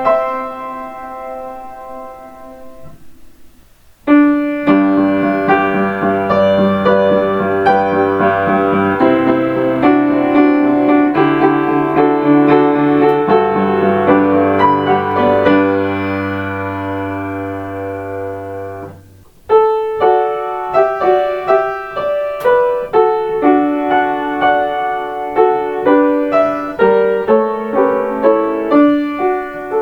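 Piano playing by-ear arrangements of Kintetsu limited express onboard chime melodies, one short piece after another. One phrase dies away about three seconds in, a new one starts a second later with held chords, and near the middle another begins with quick repeated notes.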